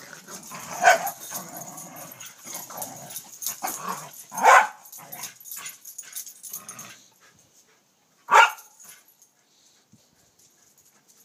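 Corgi barking sharply three times: about a second in, about four and a half seconds in, and about eight and a half seconds in. Quieter, irregular dog noises run between the first two barks and fade out around seven seconds.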